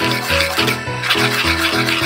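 Instrumental background music with a steady beat and a repeating bass line.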